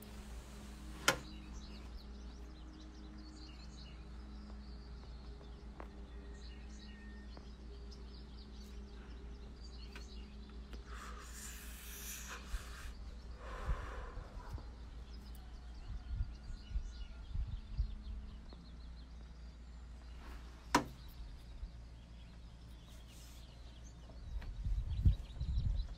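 Quiet outdoor ambience with birds chirping faintly. About midway, a long breathy drag on a cigarette is followed by an exhale, and near the end there are a few low bumps from the phone being handled.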